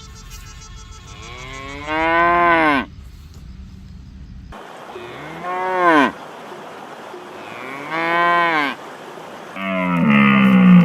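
Cow mooing three times, each call rising and then falling in pitch. Near the end a different loud call begins.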